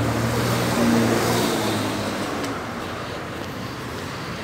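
A motor vehicle's engine runs with a low, steady hum over street noise, fading away after about two seconds.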